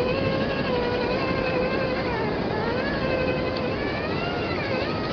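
Traxxas TRX-4 Defender RC crawler's electric motor and drivetrain whining, the pitch rising and falling with the throttle, over a steady hiss.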